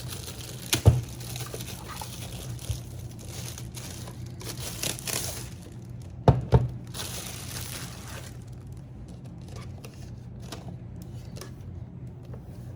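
Plastic packaging rustling as a boxed thermal label printer is unwrapped and handled, with sharp knocks about a second in and twice around six seconds in; the handling is quieter in the second half.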